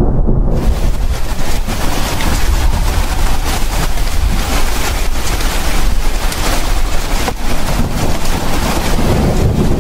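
A loud, steady rushing noise, with a deep rumble underneath, that starts abruptly about half a second in.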